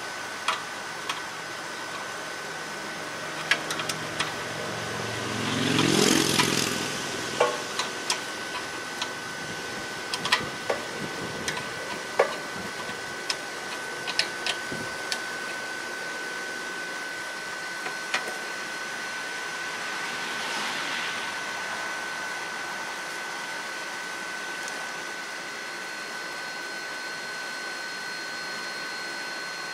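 Scattered metal clicks and clinks of hand tools and parts at a generator engine's oil pressure switch, over a steady high tone. About six seconds in, a louder rush of noise swells and rises in pitch, then fades.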